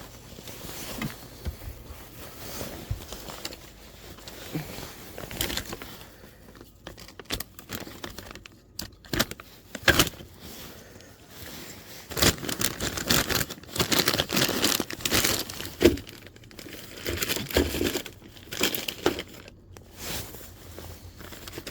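Irregular rustling and crinkling with scattered sharp knocks: someone moving about and handling tools and gear.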